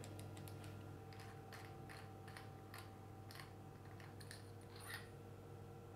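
Faint, irregular clicks and light taps of a MIG welding torch and its fittings being handled, with one slightly louder tap about five seconds in, over a low steady hum.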